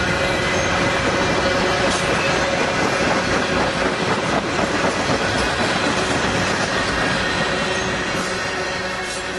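Loaded tank cars of a freight train rolling past at speed: a steady rumble of wheels on rail with a few clacks over the joints and a thin steady squeal underneath. It fades near the end as the last cars go by.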